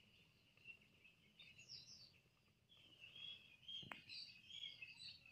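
Faint bird chirps over a quiet background, with one sharp click about four seconds in.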